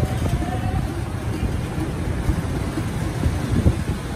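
Wooden hand churner spun back and forth between the palms in a metal pot of lassi, making a fast, uneven low rumble of knocks.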